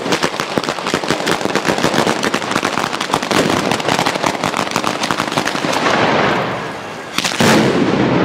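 An Italian batteria, a ground-level run of firecrackers, goes off in a rapid, dense string of cracks. It eases off about six seconds in, then one heavier bang comes near the end.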